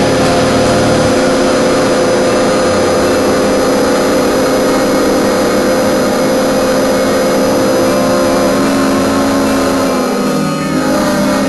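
Machinery running with a steady hum and hiss under a held, even tone, easing off near the end.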